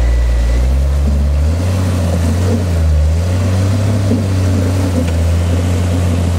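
Off-road Jeep's engine running under load as it crawls up a steep rock slab, the revs rising about a second and a half in and then wavering up and down.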